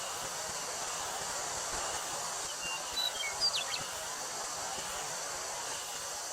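Wind through a wheat field with a steady high drone of summer cicadas. A bird gives a quick run of short, high chirps near the middle.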